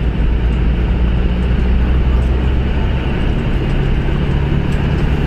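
Steady low rumble of a moving road vehicle: engine and tyre noise at a constant speed, with no sudden events.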